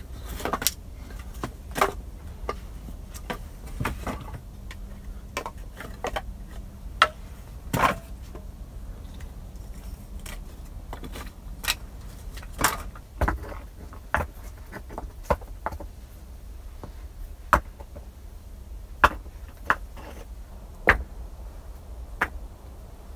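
Sticks of firewood knocking and clattering together as they are picked up and stacked, in irregular sharp knocks about once a second.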